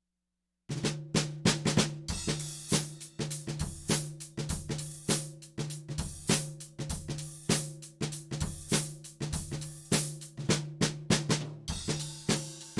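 Acoustic drum kit playing a steady beat with snare, bass drum and cymbals. It starts about half a second in, after a moment of silence, with a drum ringing under the strikes.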